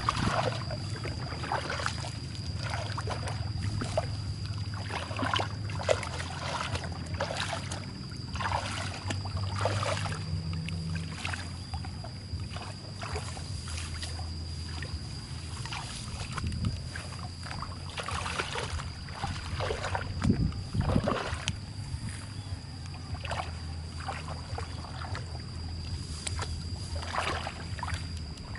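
Hands splashing and sloshing through muddy water in irregular strokes, over a steady low hum and a thin steady high whine.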